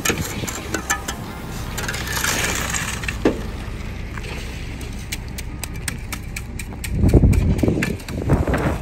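Shovels scraping and working wet concrete into kerb formwork, with scattered clicks and scrapes over a steady low engine hum from a concrete truck. A loud low rumble comes in near the end.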